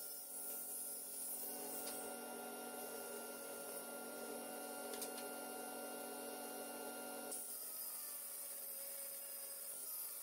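Woodworking tool noise: steady rubbing over a low hum, which changes abruptly about seven seconds in to a quieter hum.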